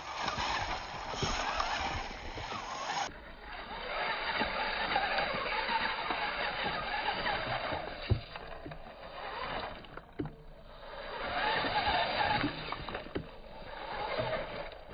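Radio-controlled rock crawler driving over loose rounded stones: pebbles crunching and clicking under its tyres, with a few louder knocks, over a steady rushing noise that swells and dips.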